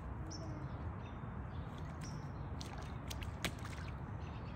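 Small rubber rain boots wading through a shallow puddle: scattered light sloshes and splashes, with one sharper splash about three and a half seconds in, over a steady low outdoor rumble.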